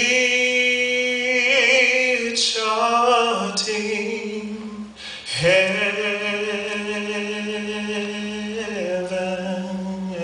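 A man singing solo with no instruments, in long held notes, with a short pause for breath about five seconds in.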